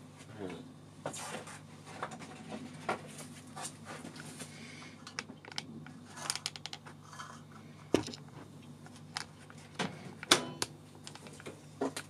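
Handling clatter inside a microwave oven: an egg and an upturned plastic plant pot being set on the glass turntable among bits of eggshell, with irregular clicks and sharp knocks, the loudest about eight seconds in and again just after ten, over a steady low hum.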